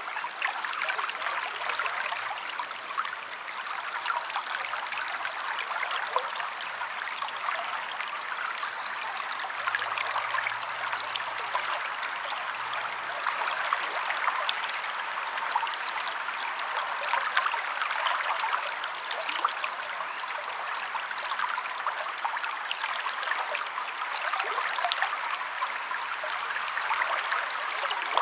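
Stream water flowing steadily with a continuous splashing rush, with faint short high bird trills every few seconds.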